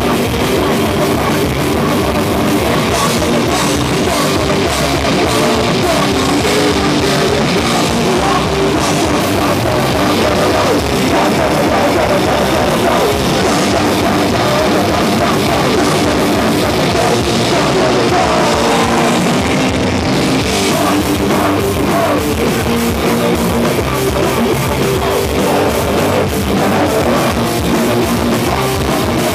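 Loud live crossover-thrash band: electric guitars and a drum kit playing fast.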